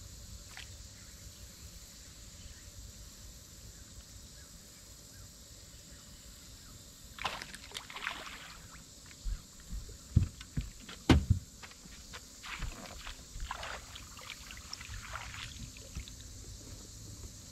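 A hooked bass splashing and thrashing at the surface beside the boat, starting about seven seconds in and going on in repeated splashes. Several sharp knocks near the middle are the loudest sounds.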